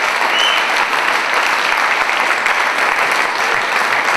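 Audience applauding: a steady, loud wash of many hands clapping at the end of a song, with a brief high tone about half a second in.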